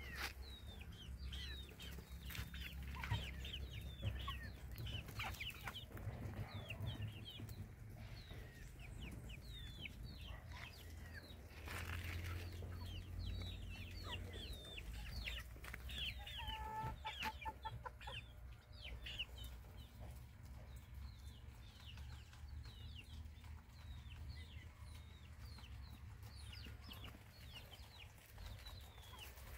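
A flock of half-grown chickens peeping and clucking: many short, high, falling chirps throughout, with a short run of clucks about halfway through.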